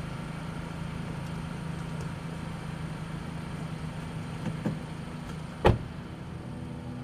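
Toyota Harrier SUV idling with a steady low hum, a couple of light knocks about four and a half seconds in, then its rear door slams shut near the end.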